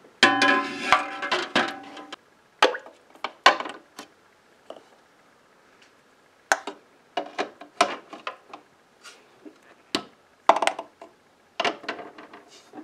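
Glass canning jars set one after another into a Presto 23-quart pressure canner, clinking and knocking against the canner and each other. The knocks come irregularly, some ringing briefly, with a loud cluster in the first two seconds.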